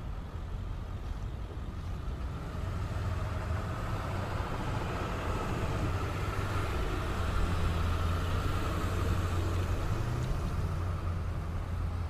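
Ceccato CSA-20 rotary screw air compressor running steadily: a constant low hum under a broad hiss, getting a little louder about halfway through.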